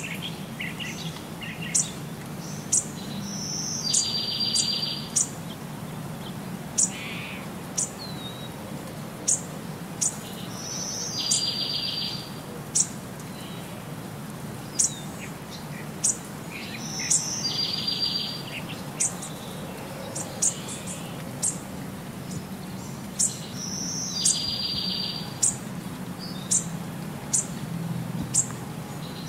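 Birdsong on a repeating loop: sharp, high chirps about once or twice a second, and a buzzy trill of about a second that comes back every six to seven seconds.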